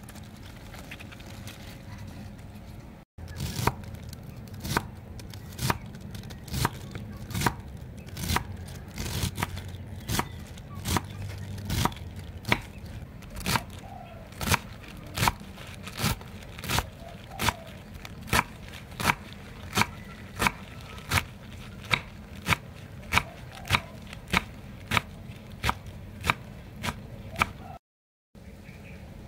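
Kitchen knife chopping leafy green stalks on a wooden cutting board, in steady, evenly spaced strokes about one and a half a second, starting about three seconds in.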